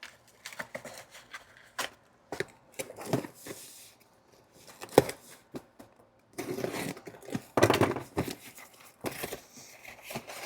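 Packaging being unwrapped by hand: paper and plastic rustling and tearing, with light knocks and clicks as parts are handled. There is one sharp click about halfway, and a longer, louder stretch of crinkling a little after.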